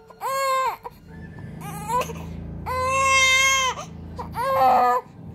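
Baby girl crying in four wails, the longest about a second, while her face and ears are massaged with oil.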